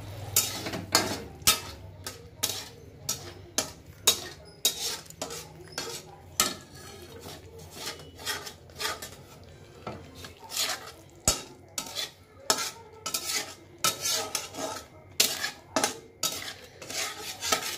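Slotted metal spatula scraping and clinking against a steel kadai as a thick paste is stirred and fried, in irregular strokes about one or two a second.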